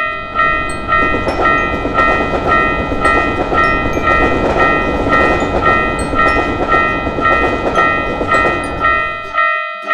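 Japanese railroad crossing warning bell ringing "kan-kan" about twice a second while a diesel train passes with a steady rumble that ends about nine and a half seconds in.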